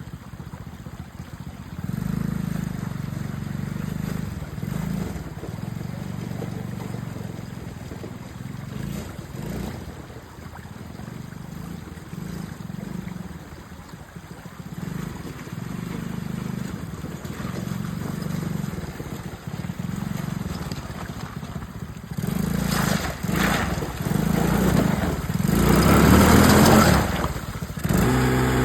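ATV engine running as it is ridden, its level rising and falling. In the last few seconds a louder, noisier stretch comes over it.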